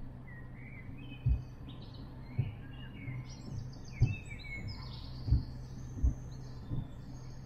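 Small birds singing and chirping, with many short calls overlapping, over a steady low hum. Irregular low thumps, about six of them, are the loudest sounds.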